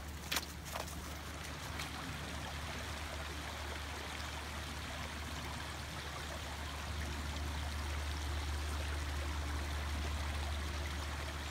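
Flowing water rushing steadily, a little louder in the second half, with a few crunching steps on the gravel trail in the first second.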